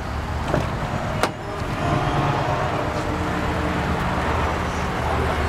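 Car door handle pulled and the door latch clicking open, two sharp clicks about half a second apart near the start, followed by the door swinging open over a steady low rumble.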